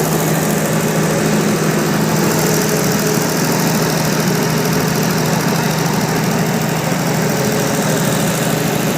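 Diesel generator engine running steadily at an even speed.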